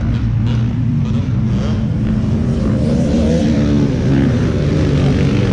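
Motocross dirt bike engines revving on the track, their pitch rising and falling.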